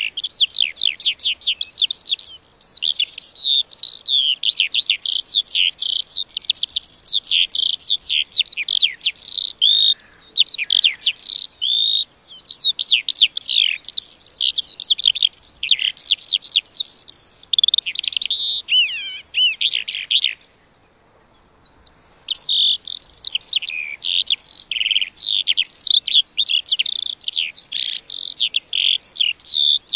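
A lark singing a long, unbroken song of rapid, high warbles and trills, with one pause of about a second roughly two-thirds of the way through.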